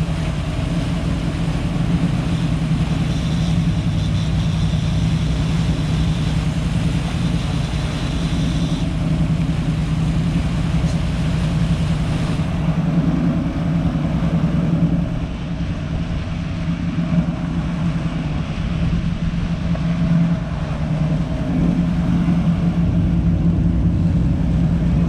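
The sportfishing boat's inboard engines running steadily at slow trolling speed, a low drone that eases off a little for a few seconds past the middle.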